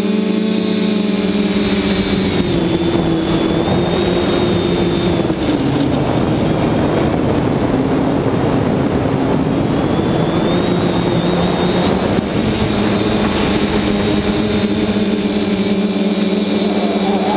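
Multirotor drone's electric motors and propellers whining steadily, heard close up from a camera mounted on the drone, over a dense rushing noise. The motor pitch wanders up and down with the throttle and rises near the end.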